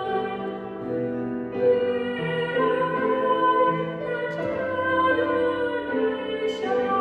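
A woman singing a slow solo song into a handheld microphone over sustained instrumental accompaniment, with long held notes.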